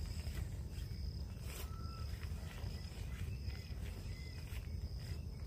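Fabric and tarp rustling in short bursts as a fabric bundle of camping gear is rolled up by hand on a plastic ground tarp, with insects chirping steadily in the background.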